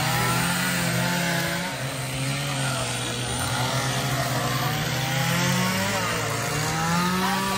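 Two-stroke chainsaws running and being revved, their pitch rising and falling repeatedly.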